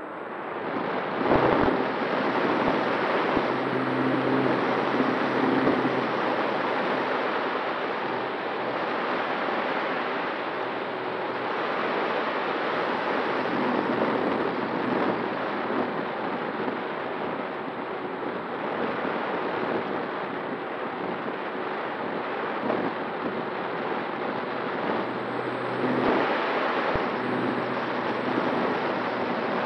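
Air rushing over the onboard camera's microphone on a Skua FPV flying wing in flight, with the steady hum of its pusher propeller underneath. It comes up over the first second or two and then holds steady.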